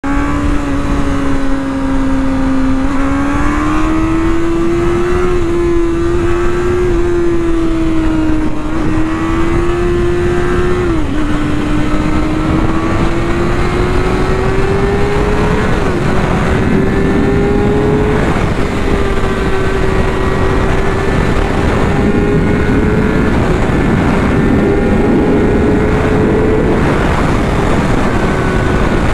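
Honda CBR600RR inline-four sport bike engine running at highway speed from the rider's seat, its pitch slowly climbing as it pulls, with a sharp drop about eleven seconds in where it shifts up a gear. Heavy wind noise runs under the engine.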